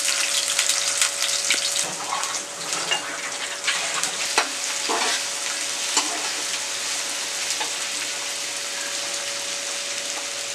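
Sliced onions frying in hot oil in a frying pan, a steady sizzle, with a few scrapes and taps of a slotted metal spatula stirring them during the first half.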